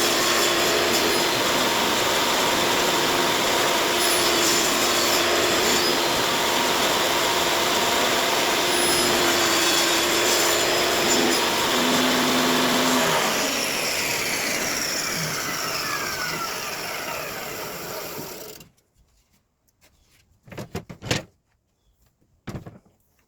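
Table saw running steadily while cutting dado slots in a pine fence-picket board, then switched off about thirteen seconds in, its blade coasting down with a falling whine for several seconds before stopping. A couple of short knocks follow near the end.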